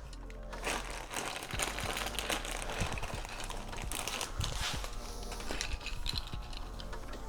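Plastic cable drag chain links and clips being handled and snapped into place: irregular clicks and rattles.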